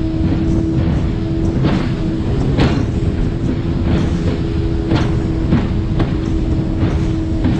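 Small tuna-seiner speedboat running at full speed over open sea: a steady engine drone under rushing water, with irregular slaps and splashes about once a second as the hull strikes the swell.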